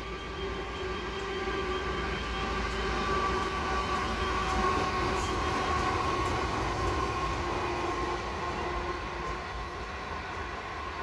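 Pacific National NR class diesel-electric locomotives passing at speed, their engines droning with a steady whine over a low rumble. The sound grows loudest about halfway through as the locomotives go by, then eases slightly and its pitch sags a little as the passenger carriages roll past.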